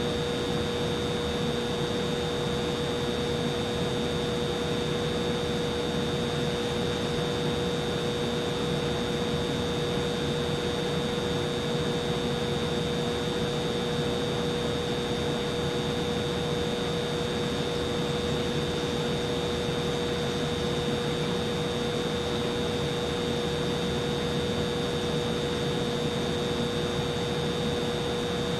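Humidifier running: a steady motor-and-fan whir with a constant hum and a fainter high whine, unchanging throughout.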